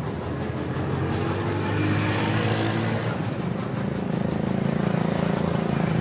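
A motor vehicle's engine running, its note changing about three seconds in.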